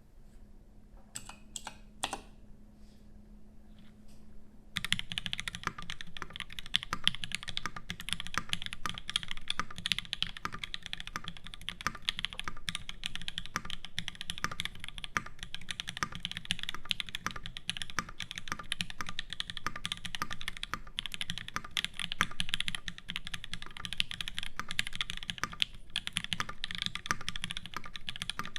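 Custom mechanical keyboard (ORI CLS-1 with an aluminium plate, Krytox-lubed H1 switches and GMK keycaps) being typed on. A few separate keystrokes come first, then fast, continuous typing starts about five seconds in.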